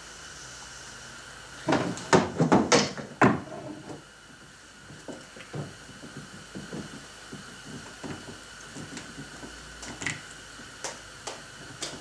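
Knocks and clatter of parts being handled against a plastic kayak hull: a quick run of loud knocks about two seconds in, then scattered lighter taps and clicks.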